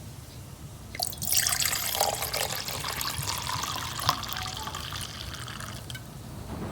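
Water running in a dense hissing stream, starting abruptly about a second in and stopping near the end.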